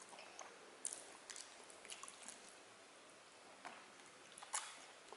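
Faint wet eating sounds of chicken feet being chewed and sucked off the bone: scattered short smacks and clicks, the loudest about four and a half seconds in.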